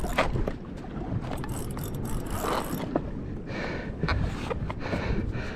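Wind buffeting the microphone, with sea water slapping against a small boat's hull, heard as a steady rough rumble broken by short knocks and splashes.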